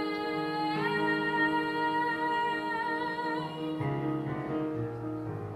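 Girl's solo singing voice with piano accompaniment: she holds one long note that steps up in pitch about a second in and ends about two-thirds of the way through, after which the piano plays on alone.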